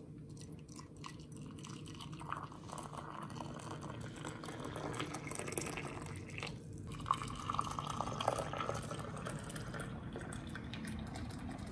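Water poured from an electric kettle into ceramic tea mugs, a steady splashing trickle. It breaks off briefly a little past halfway as the pour moves to a second mug, then carries on.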